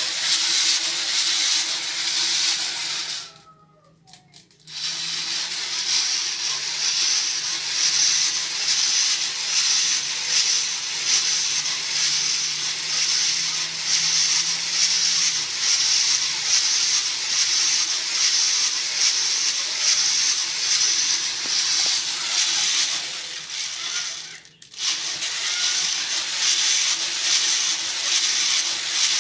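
Coffee beans crackling and rattling as they tumble in a hand-cranked drum roaster over a wood fire: the dense, steady cracking marks the roast reaching the point to take it off. The sound drops out briefly about three seconds in and again near the end.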